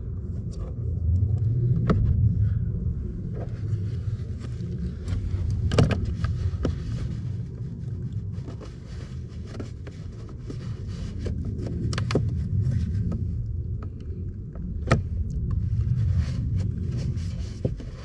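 A plastic oil jug's lid being handled and fitted back on, giving scattered sharp clicks and knocks over a low rumble that swells and fades.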